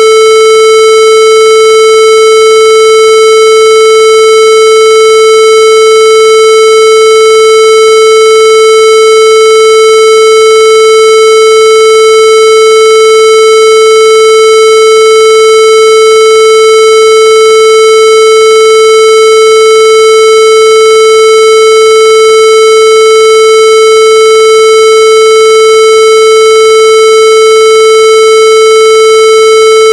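Loud, harsh electronic tone held at one unchanging pitch, buzzy rather than pure, with no break or variation.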